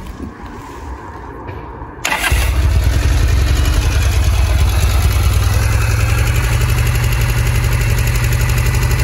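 Norton 850 Commando's parallel-twin engine being started with its CNW electric starter: a brief spin of the starter about two seconds in, the engine catching at once, then running steadily with an even pulse.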